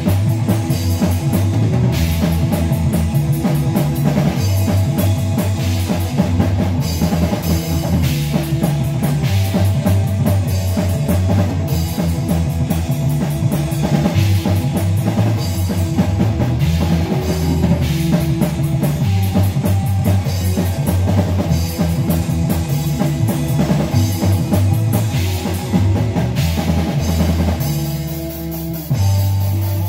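Live rock band playing: drum kit, electric guitars and bass guitar, steady and loud, the sound thinning briefly near the end.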